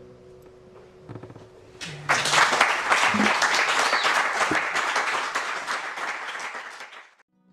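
The last notes of two acoustic guitars ring out and fade. Then an audience applauds for about five seconds, and the applause cuts off suddenly near the end.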